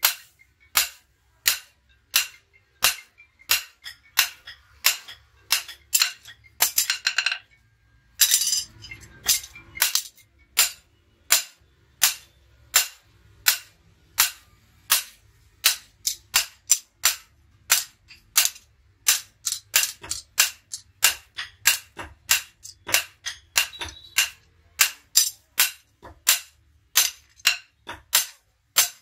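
Hand hammer striking a steel billhook blade on a steel anvil block, sharp ringing metal-on-metal blows at about two a second. About a quarter of the way in the blows stop briefly and there is a short scraping noise, then the steady hammering resumes.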